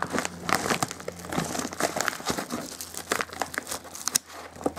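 Metallic bubble mailer crinkling and rustling as it is handled and pulled open by hand, a dense run of irregular crackles.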